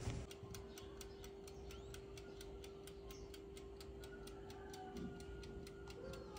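Mechanical oven timer ticking evenly, about four ticks a second, over the steady hum of the running oven.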